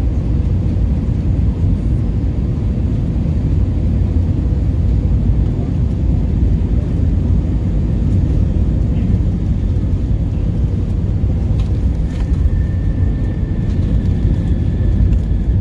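Steady low rumble inside the cabin of an Airbus A321 rolling along the ground just after landing: engine noise together with the rumble of the landing gear on the runway. A faint high whine joins about twelve seconds in.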